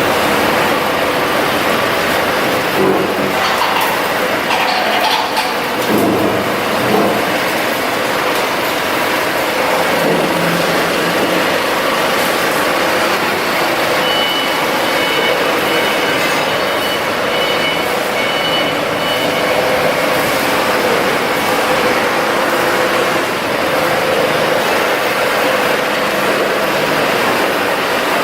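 900 kVA Cummins diesel generator set running steadily and loudly. A few knocks sound in the first several seconds, and a repeated high beep comes in for a few seconds around the middle.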